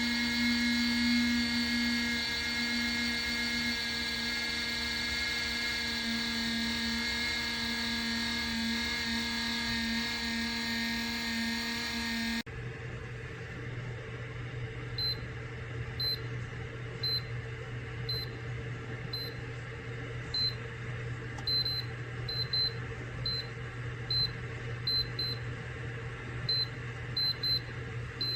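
Small electric space heater's fan motor running with a steady whine. After a sudden cut, a steady low hum with short high beeps at irregular intervals, like the heater's control-panel buttons being pressed.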